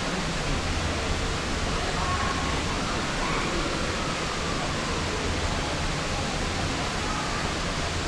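Steady rushing noise with faint distant voices over it.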